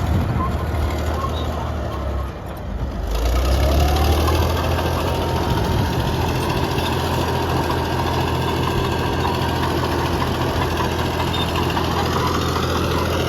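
Caterpillar D6D bulldozer's diesel engine running hard as the dozer pushes dirt. About two and a half seconds in the sound dips briefly, then the engine note rises and holds steady.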